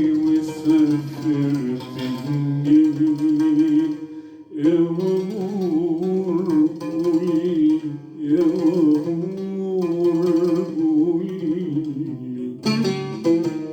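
Arabic instrumental music: an ornamented melody over a lower accompanying line, led by plucked strings. It breaks off briefly about four seconds in, and the texture changes near the end.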